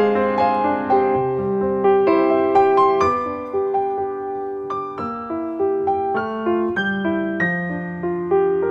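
Piano music: a slow melody of struck notes over held lower notes.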